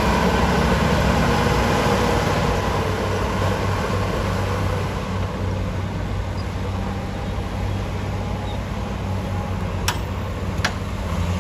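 Bulldozer's diesel engine running, a steady low drone that eases slightly about halfway through, with two sharp clicks near the end.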